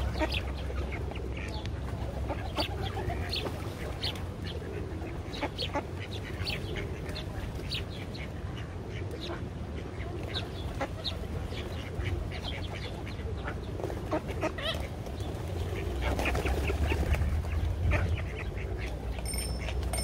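A flock of mallard ducks quacking and calling in short, scattered bursts as they feed on oats on the ground, over a steady low rumble that swells near the end.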